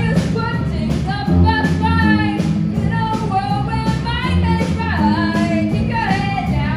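Rock song played by a small live band with drum kit and electric guitar, a voice singing the melody over a steady beat.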